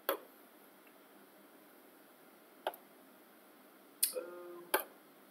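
A few soft, sharp clicks as a pen colour is chosen from an on-screen colour palette, with a short hummed "mm" from the teacher about four seconds in.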